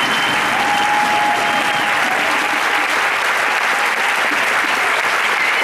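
Audience applauding, a steady dense clapping that neither builds nor fades.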